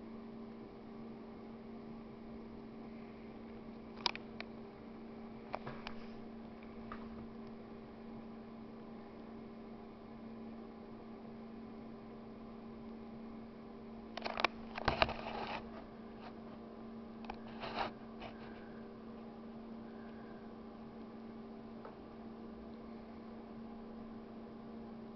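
Steady electrical hum with a single low tone and its octave, under a few short clicks and knocks: a couple of clicks about four and six seconds in, a louder cluster of knocks a little past halfway, and one more shortly after.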